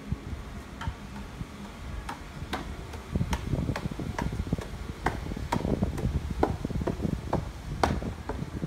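Footsteps on a concrete street, about two a second at an even walking pace, each a sharp tap. Under them is a low rumble that grows louder about three seconds in.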